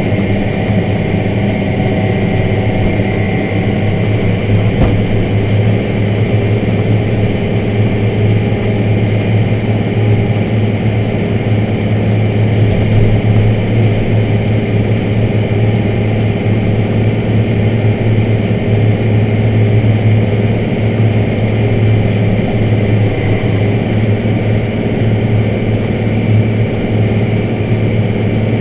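A large farm tractor's diesel engine running steadily while it pulls a scraper pan, heard from inside the cab as an even low drone.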